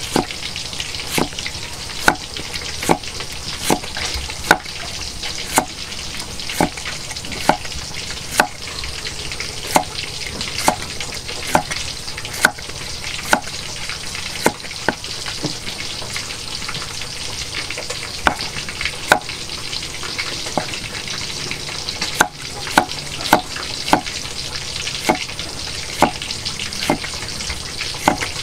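Cleaver slicing a cucumber on a thick round wooden chopping block: a sharp knock of the blade on the wood roughly once a second, over a steady hiss.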